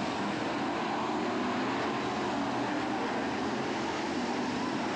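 BriSCA F1 stock cars' V8 engines running at racing speed, a steady blend of engine noise from the cars on the track.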